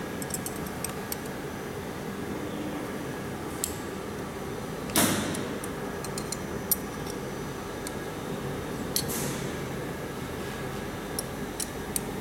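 Small metal clicks and taps as a metal tool and hands work on an aluminium rotary chuck attachment, with a louder, longer rasp about five seconds in and another about nine seconds in, over a steady machine hum.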